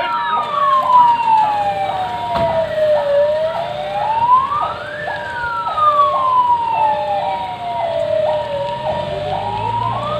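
Two police vehicle sirens sounding together: one wails, rising quickly and falling slowly about every five and a half seconds, while the other alternates between a high and a low tone about twice a second. A single short sharp crack comes about two and a half seconds in.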